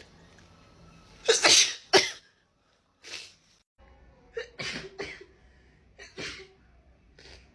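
A woman sneezing in a fit: one loud sneeze about a second and a half in, then a run of shorter, quieter bursts.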